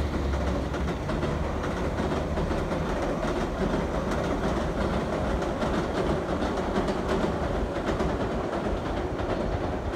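JR Nara Line electric train crossing a steel girder railway bridge: a steady rumble with many quick wheel clicks over the rails.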